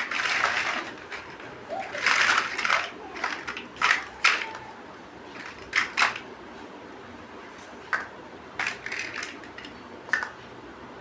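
Plastic building bricks clicking and rattling as they are handled and pressed together, in irregular sharp clicks with brief rustling near the start.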